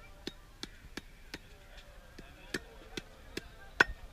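Meat cleaver chopping mutton leg pieces on a round wooden chopping block: a run of sharp chops about three a second, a short pause, then more strikes with the heaviest blow near the end.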